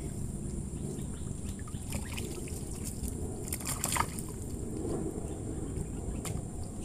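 Plastic bait tub handled with a few light clicks and knocks, the sharpest about four seconds in, over a steady low outdoor rumble.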